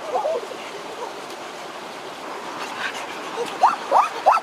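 Shallow stream running over rocks, with a couple of short high-pitched exclamations at the start and a quick run of louder yelps near the end from the boys.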